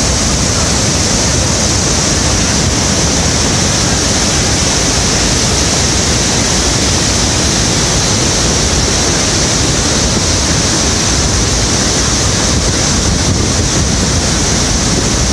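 Loud, steady rush of a waterfall at close range: Niagara's Bridal Veil Falls pouring onto the rocks beside the Cave of the Winds decks.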